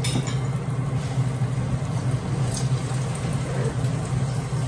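Chicken frying in hot oil, with a steady sizzle over a constant low hum and a couple of faint clicks of metal tongs.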